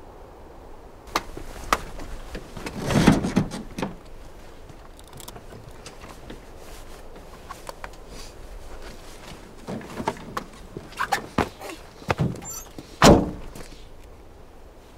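Vehicle door and cab being handled as someone climbs in: scattered clicks and knocks, with a heavy thunk about three seconds in and a louder one near the end.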